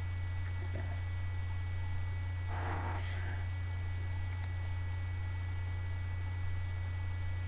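Steady electrical mains hum, with one brief soft noise about two and a half seconds in.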